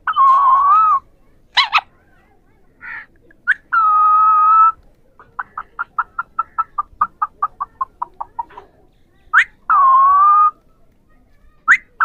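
Alexandrine parakeets calling to one another: sharp rising squawks between three longer, steady-pitched calls of nearly a second each. In the middle comes a quick run of about twenty short clicking notes.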